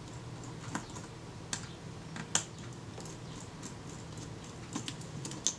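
Scattered light clicks and taps as the metal body of a Kodak Retina IIIc camera is handled and turned over in the hands: about five sharp ticks at uneven intervals, over a faint steady low hum.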